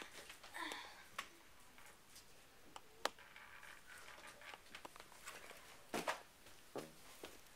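Faint scattered knocks, taps and rustling from a person handling things at a wall and moving about a small room, with sharper knocks about three seconds in and around six to seven seconds in.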